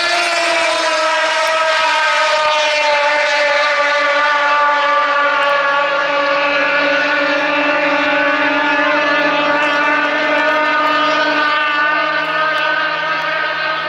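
Racing outboard engine running at high revs, a loud high-pitched whine whose pitch sinks slowly, growing quieter near the end.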